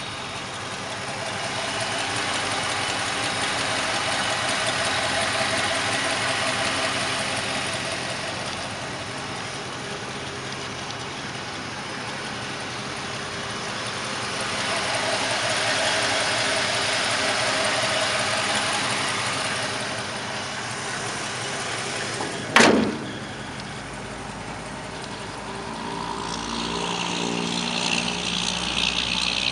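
The engine of a 1956 Ford F-100 pickup running at idle, growing louder twice as it runs. About two-thirds of the way through there is one sharp click, the loudest moment. A higher-pitched rattle joins near the end.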